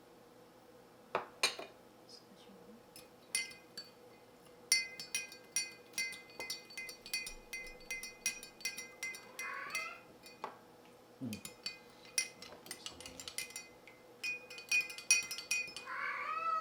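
A utensil stirring in a mixing bowl, clinking against it again and again with a ringing tone, as sugar is combined with lukewarm water and yeast. A cat meows about ten seconds in and again near the end.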